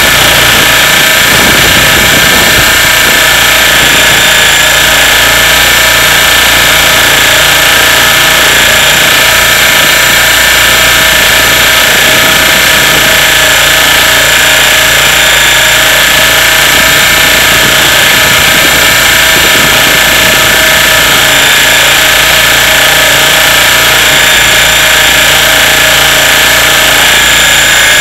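Radio-controlled helicopter's motor and rotor running steadily in flight, heard close up from a camera carried on the helicopter. A steady whine of several fixed tones sits over the rotor noise.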